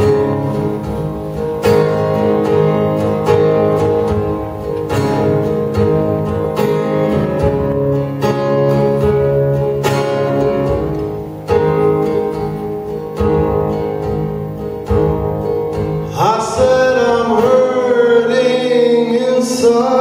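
Acoustic guitar strummed in a steady pattern, with a strong stroke about every second and a half. Near the end a man's voice comes in singing over the guitar.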